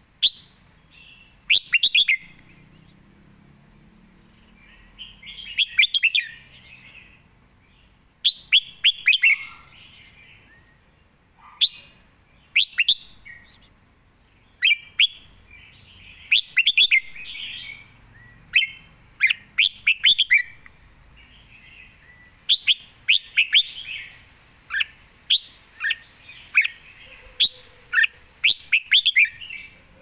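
Red-whiskered bulbul singing: short, bright phrases of quick falling notes, repeated every second or two with brief pauses between them.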